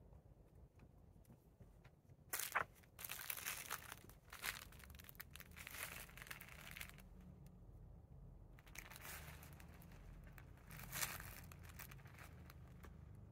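Faint rustling and crinkling in several bursts of a second or two each, from movement on soft bedding and cushions.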